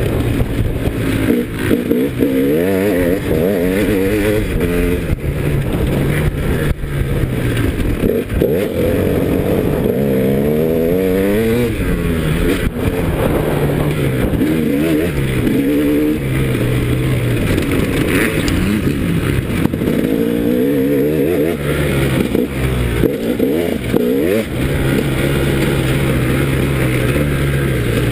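KTM 300 EXC single-cylinder two-stroke dirt-bike engine under hard riding, its pitch repeatedly climbing and dropping back as the throttle is opened and closed.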